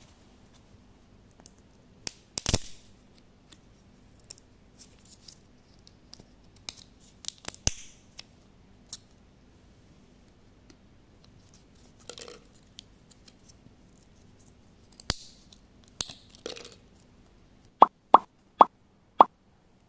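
Eyeball candies and a meat grinder being handled: scattered clicks, knocks and short crinkly rustles. Near the end comes a run of sharp, hollow plops, about two a second.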